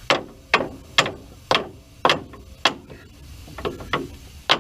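Hammer tapping on steel to work a seized truck strut assembly loose, sharp strikes about two a second with a short pause near the end.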